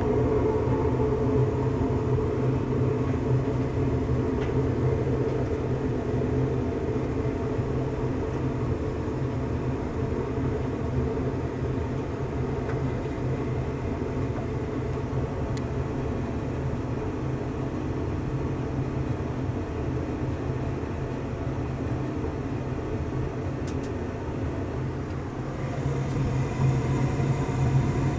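Two-stage gas furnace running with its burners lit: a steady mechanical hum of motors and flame, growing louder about two seconds before the end.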